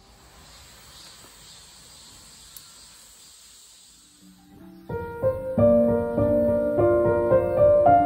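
Faint, steady high-pitched insect chirring, likely crickets, for about four and a half seconds. Then gentle piano music comes in and becomes the loudest sound.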